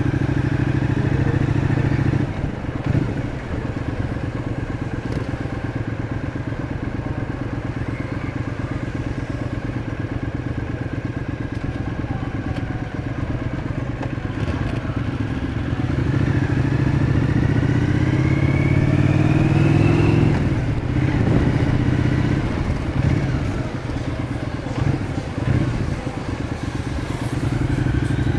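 Cruiser motorcycle engine running under the rider in slow traffic. About halfway through, its note rises as it accelerates, then drops away sharply about twenty seconds in as the throttle is eased or a gear is changed.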